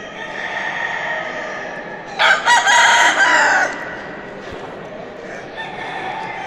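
A gamecock rooster crows once, a loud crow of about a second and a half starting about two seconds in, over a fainter steady background.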